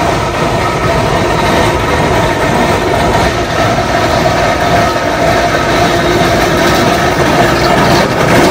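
Steam traction engines running along a tarmac road in convoy, a dense steady mechanical rumble from their iron wheels and gearing. It grows a little louder near the end as the leading engine passes close.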